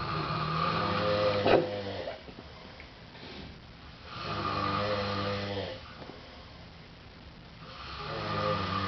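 Two sleeping men snoring loudly in turn. Three long, low snores come about four seconds apart, with a brief sharp snort near the end of the first.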